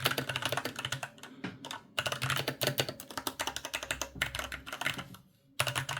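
Typing on the original ASUS ROG Falchion 65% keyboard with linear switches: a fast patter of keystrokes, with short breaks about two seconds in and again near the end.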